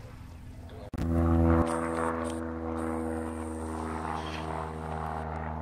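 Single-engine propeller light plane flying overhead: a steady piston-engine drone with a strong low hum. It starts abruptly about a second in and is loudest at first.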